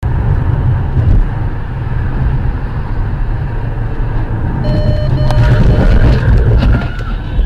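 Car cabin noise while driving fast on a highway: a loud, steady low rumble of tyres and engine. About five seconds in, a couple of short steady tones sound over it.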